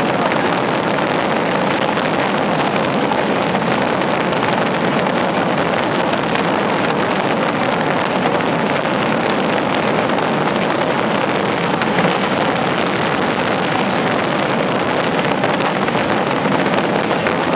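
A massed barrage of festival rockets (voladores) bursting overhead, so many at once that the bangs merge into a loud, steady, unbroken din of rumbling and crackling blasts.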